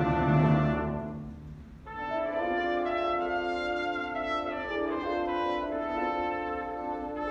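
Background music of sustained held notes: one chord fades away over the first two seconds, then a new phrase of long held notes comes in.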